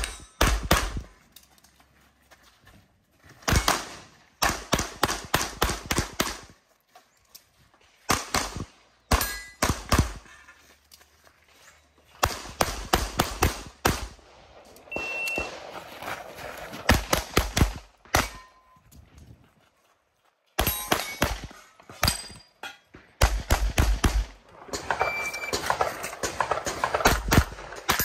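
Tanfoglio pistol firing strings of rapid shots, many in quick pairs. Breaks of one to three seconds separate the strings.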